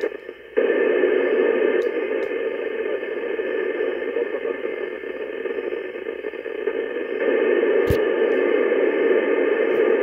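FM static hiss from the Icom IC-9700 transceiver's speaker on the ISS voice repeater's UHF downlink, with no voice on the channel. It starts about half a second in after a brief quieter gap and grows louder about seven seconds in, with a single sharp click about a second later.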